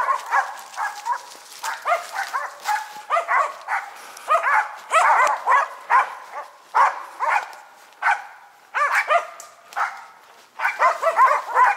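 Several Karelian-Finnish laikas (Finnish spitz) barking in rapid, repeated volleys with short gaps, baying at a tree: the hunting dogs' signal that a marten is up in it.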